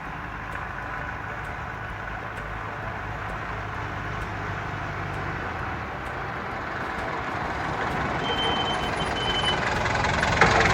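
Motor vehicle engine running steadily, growing gradually louder, with a brief high beep near the end.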